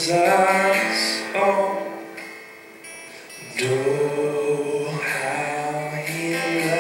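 Live worship song: a voice sings long held notes over the band. It drops quieter for about a second around the middle, then comes back in strongly.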